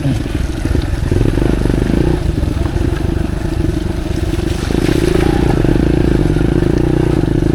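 Motorcycle engine running at low, uneven revs while the bike picks its way along a muddy trail. About five seconds in, the revs rise and hold steady.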